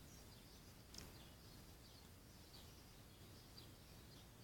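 Near silence: faint background hiss with a few faint, short, high chirps.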